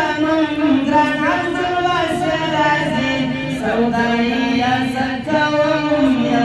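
A man singing a nazm (a recited poem set to a melody) unaccompanied into microphones, in long melodic phrases with held notes.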